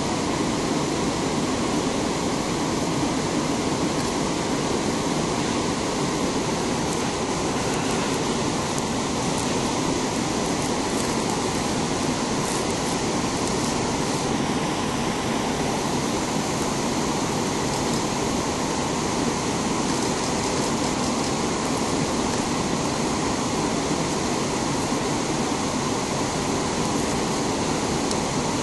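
Rushing white water of river rapids and a waterfall: a steady, unbroken wash of water noise, its hiss easing slightly about halfway through.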